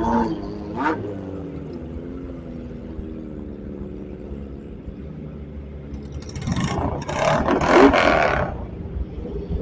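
Sport motorcycle engines running while riding: a steady engine drone, then about six seconds in a loud, higher-revving burst of engine and rush lasting about two seconds, before settling back to the steady drone.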